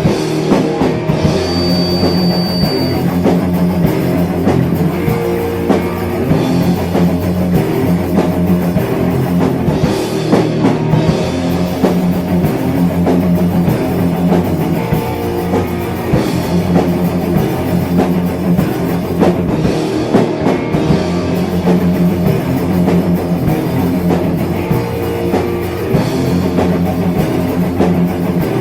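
Heavy metal band playing, with electric guitar and a drum kit.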